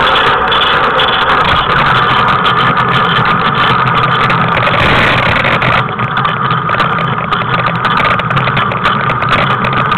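Tricycle wheels rolling over asphalt pavement, a loud steady rumble with a slight drop about six seconds in.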